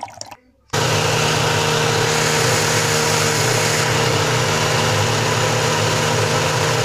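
Countertop blender motor running at a steady speed, blending a jar of milk, condensed milk and cream. It starts abruptly about a second in and holds a steady whirring hum.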